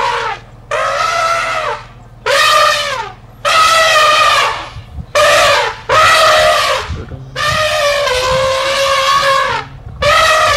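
Elephant trumpeting: a run of about seven loud calls, each around a second long with short gaps between. The longest call, about two seconds, comes near the end.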